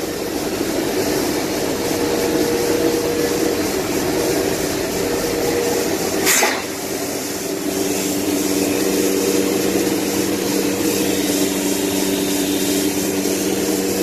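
CNC woodworking router running: a steady machine hum with several steady tones. A short sharp knock comes about six seconds in, after which the mix of hum tones changes.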